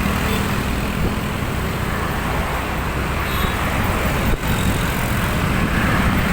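Steady vehicle and road noise while driving along a road, with a low hum in the first second and a brief drop in the sound a little past four seconds in.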